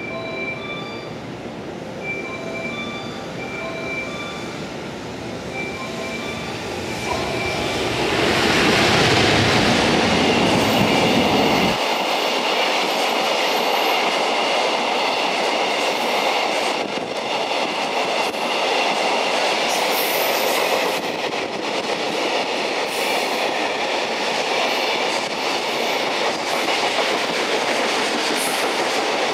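A JR Freight EF210 electric locomotive passes close by, loudest from about eight to twelve seconds in. A long line of container wagons then rolls past with steady wheel clatter and a high ringing from the wheels on the rails. Before the locomotive arrives, a repeating pattern of steady tones sounds.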